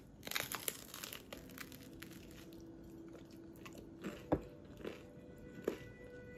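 Crunching bites into a hard-crusted toasted ciabatta sandwich and chewing. A cluster of crunches comes in the first second and a few more between four and six seconds in, over soft background music.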